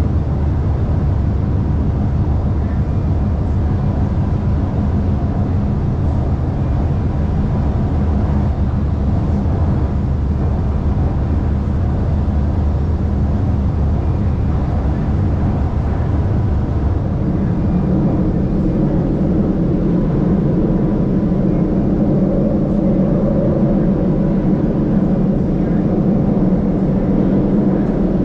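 Shanghai Metro Line 2 train running between stations, heard from inside the car: a steady rumble of wheels on rail with a faint hum. About two-thirds of the way through, the tone shifts higher.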